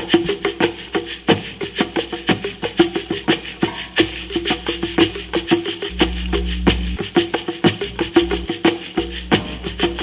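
Live percussion music: fast, uneven sharp strikes, several a second, over a sustained mid-pitched tone and a low drone that swells in places.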